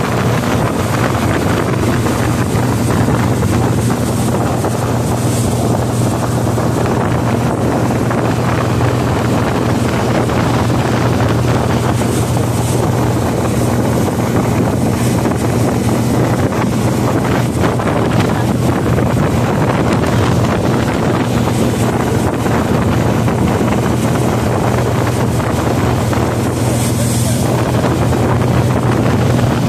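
Tow boat's engine running steadily at speed, a constant low hum, with wind buffeting the microphone and the rush of the churning wake.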